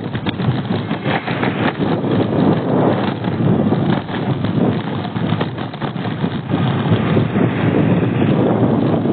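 Road traffic noise: a dense, steady rush of vehicles and tyres, with some wind buffeting the microphone.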